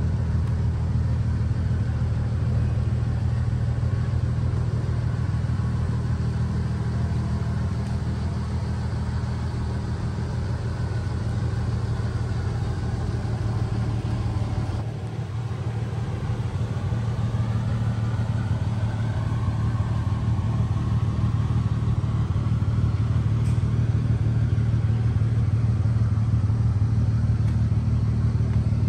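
Toyota 1JZ-GTE twin-turbo straight-six engine idling steadily, a low, even rumble. There is a brief dip about halfway through.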